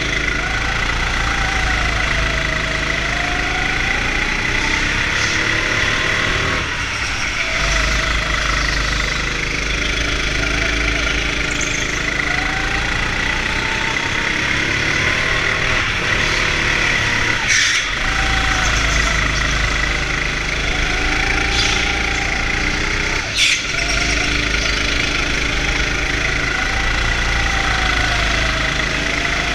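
Go-kart running laps, its motor's pitch rising and falling over and over above a steady high whine and low rumble. Two sharp knocks in the second half.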